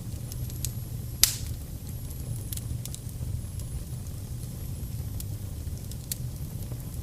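Wood fire burning in a fireplace: a low steady rumble with scattered crackles and sharp pops, the loudest pop about a second in.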